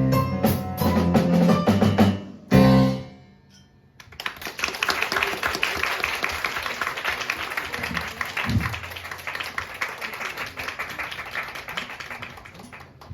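A live drum-and-keyboard song ends on a final hit about two and a half seconds in. After a second's hush, audience applause follows.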